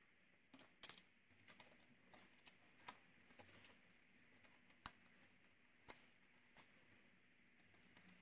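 Faint, scattered metallic clicks and taps of small steel parts and hand tools against a lathe's top slide as it is taken apart. A sharp double click about a second in is the loudest, with single clicks every second or two after it.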